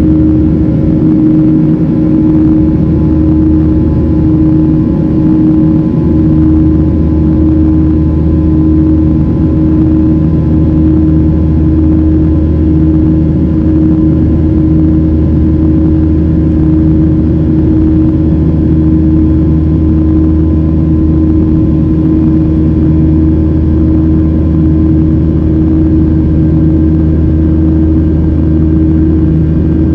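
Cabin noise of a Boeing 737-700 in flight, heard beside its CFM56-7B turbofan engine: a loud, steady engine drone with a constant hum over a low rumble.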